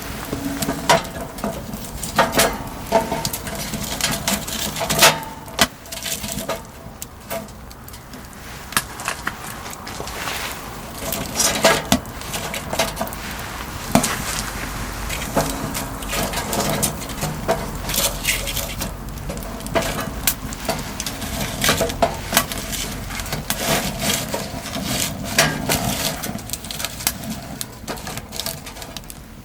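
Irregular knocks and clinks of things being handled, with a few sharper clicks standing out, over a low steady background.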